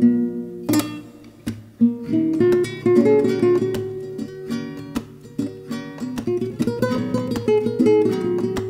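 Background music: an acoustic guitar picking and strumming a melody, with notes plucked in quick succession.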